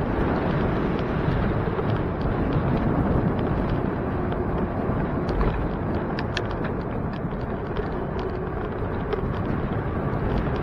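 Steady wind rush and road noise on the microphone of a camera riding on a moving bicycle, with scattered light clicks and rattles from about five to nine seconds in.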